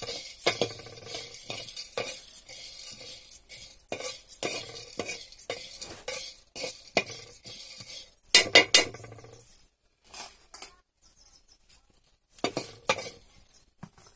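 Metal spatula scraping and clinking on a flat metal griddle (tava) as seeds are stirred and dry-roasted, in uneven strokes. The loudest scrapes come about eight and a half seconds in, then a quieter stretch before a few more strokes near the end.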